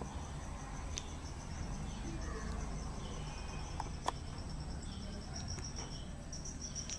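Insects chirping: a steady, high, pulsing trill over a low background rumble, with a couple of faint clicks.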